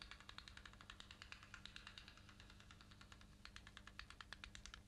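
Near silence: faint, rapid, uneven clicking, several clicks a second, over a low steady hum.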